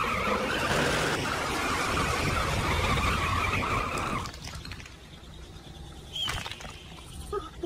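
Cartoon truck's engine rumble with tyres screeching in a skid, cutting off suddenly about four seconds in as the truck stops; a faint click follows a couple of seconds later.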